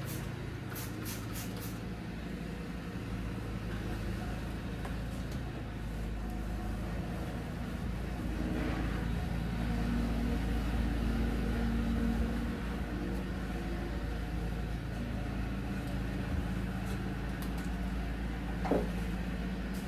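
A few short squirts of a trigger spray bottle near the start, over a steady low mechanical hum; a brief squeak near the end.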